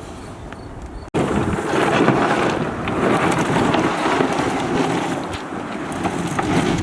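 Loud, steady rushing of wind buffeting the microphone, starting abruptly about a second in after a quieter stretch.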